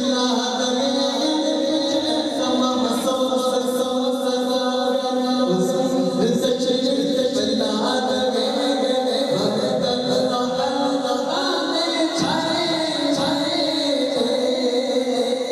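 Unaccompanied devotional naat singing: a voice holds long, drawn-out notes that slide from pitch to pitch, with no instruments.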